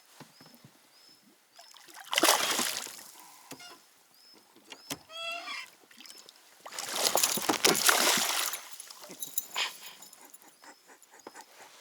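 Hooked pike thrashing at the water's surface, splashing in two loud bursts: one about two seconds in, and a longer one around seven to eight seconds in.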